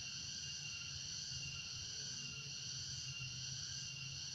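Steady high-pitched background drone in several even bands over a low hum, unchanging throughout.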